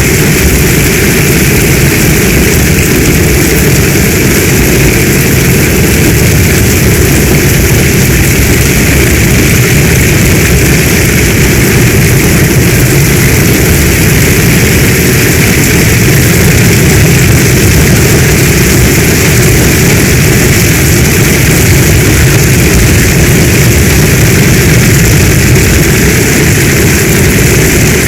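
Heavy storm rain as a dense, steady rush with a deep rumble underneath and no single drops or thunderclaps standing out.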